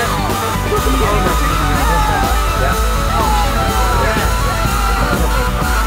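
Rock music with a held high tone that creeps slowly upward in pitch.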